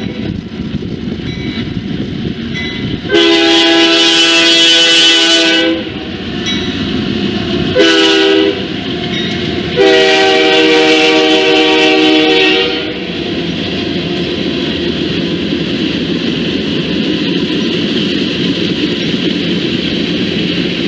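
Locomotive air horn sounding a long blast, a short one and a long one, each a chord of several steady tones: the close of the long-long-short-long grade-crossing signal. After the last blast, the steady rumble and clatter of the train rolling past on the rails.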